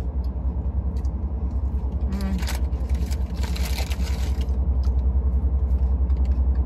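Steady low rumble of a Rolls-Royce idling, heard inside the cabin, with an even quick pulse. Two brief rustles, about two seconds in and again from about three to four and a half seconds.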